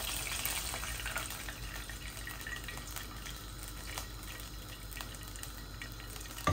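Cooking oil trickling from a bottle into a non-stick frying pan, a quiet steady pour.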